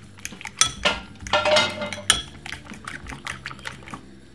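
Metal fork whisking beaten eggs with chopped peppers and onion in a ceramic bowl. It clinks irregularly against the bowl and sloshes the egg, loudest in the first half.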